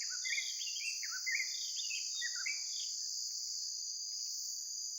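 A steady high-pitched insect chorus runs throughout. Over it, a small songbird sings quick chirping, down-slurred phrases for about the first three seconds, then falls mostly silent.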